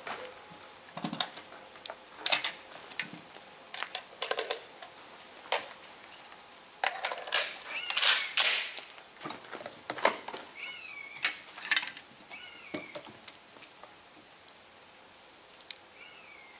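Metallic clicks and clacks of an FN FAL battle rifle being handled and loaded: the rifle is lifted off its rest and a magazine fitted. The clacks are irregular, louder a few times near the middle.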